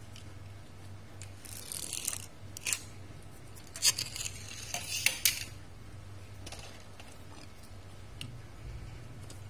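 Small toy cars handled and set down on a hard floor: a short scrape of wheels about one and a half seconds in, then several sharp clicks and clinks around the middle, over a low steady hum.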